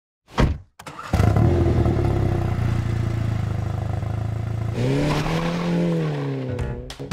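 MINI John Cooper Works GP's turbocharged 2.0-litre four-cylinder engine starting about a second in, after a brief whoosh, and idling steadily. About two seconds before the end it is revved once, its pitch rising, holding and falling back.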